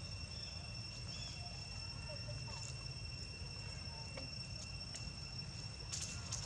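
Steady insect drone, two unwavering high tones, over a low rumble. A few soft clicks and rustles come near the end.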